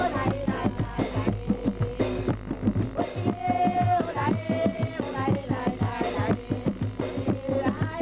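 Music with a quick, steady drum beat and held melody notes over it.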